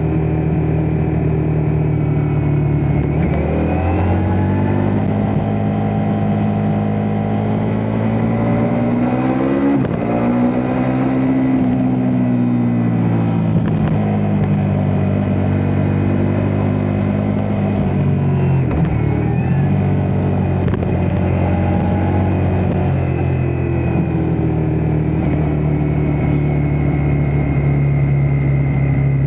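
Ducati Multistrada V4S's V4 engine running continuously, its pitch climbing over several seconds, easing back down, dropping sharply once about two-thirds of the way in, then rising again and holding steady.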